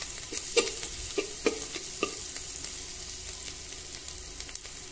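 Sliced onions sizzling in hot oil in an aluminium pressure cooker while a spatula stirs them. The spatula knocks and scrapes against the pot several times in the first two seconds, then the sizzling goes on steadily with only a few light taps.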